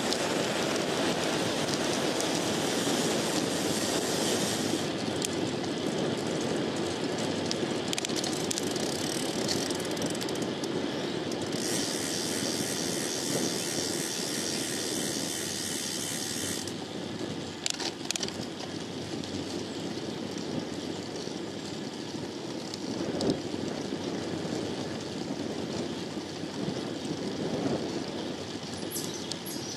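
Road bike riding along, heard from a handlebar-mounted microphone: wind rushing over the mic and tyres rolling on pavement make a steady rush. A higher hiss comes in twice for a few seconds, with a few light clicks and a small knock later on.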